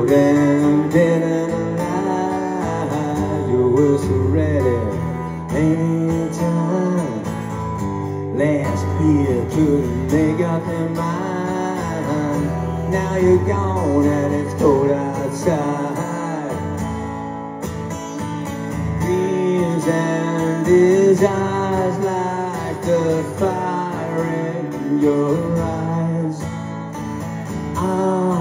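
Live solo acoustic rock song: an acoustic guitar strummed steadily, with a lead melody line carried over it.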